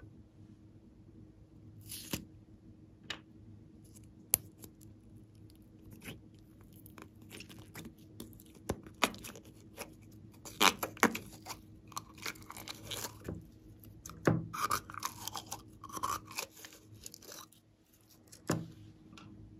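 Slime being handled: yellow jelly slime squeezed out of a small plastic jar and pressed by hand into a tray of slime, with irregular wet squishing, clicks and crackles that grow busier about halfway through.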